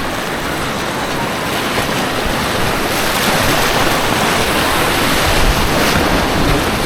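Whitewater rapids of an artificial whitewater course rushing loudly around a kayak, a steady roar of churning water that grows a little louder from about three seconds in.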